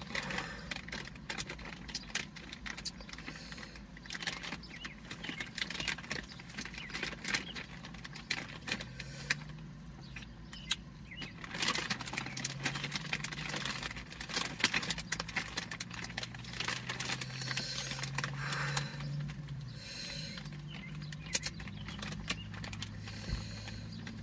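Rotisserie chicken being pulled apart by hand and eaten: scattered clicks, crackles and rustles of food and its plastic container being handled, with chewing. A low steady hum comes in about nine seconds in.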